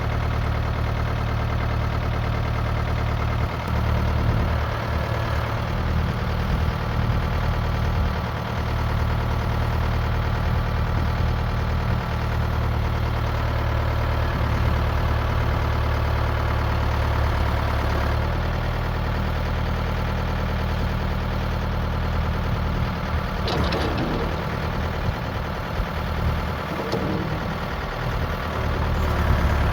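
A diesel backhoe's engine runs steadily while working, its pitch and load shifting a few times, with a brief sharp noise about 24 seconds in. The machine's injector pump has just been rebuilt.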